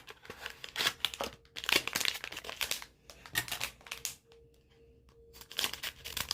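Blind-box packaging being torn open and crinkled by hand, in irregular rustling crackles with a brief lull past the middle.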